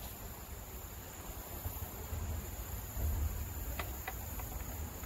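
Insects chirring steadily on one high pitch, over a low rumble, with a few faint clicks about four seconds in.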